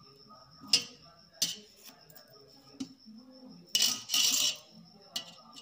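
Hands peeling boiled potatoes over a stainless steel bowl: a few light taps of potato and fingers against the steel, and a short, louder scraping rustle about four seconds in.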